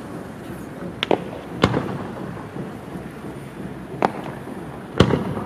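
Aerial fireworks shells bursting: four sharp bangs over a few seconds, two close together after about a second and the loudest near the end, each trailing off in a short rumble.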